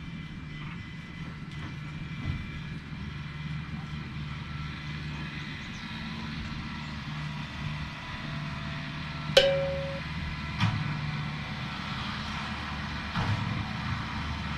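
A steady low mechanical hum. About nine seconds in comes a sharp metallic clank that rings briefly, and two lighter knocks follow.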